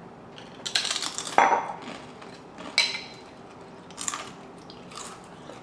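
A person biting into and crunching a crisp chip: four or five sharp crunches about a second apart, the loudest about a second and a half in.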